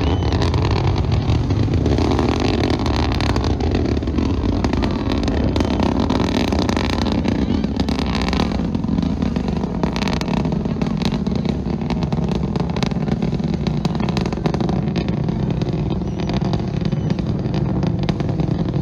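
Long March 12 rocket's first-stage engines rumbling steadily during ascent, a deep continuous rumble laced with rapid crackling.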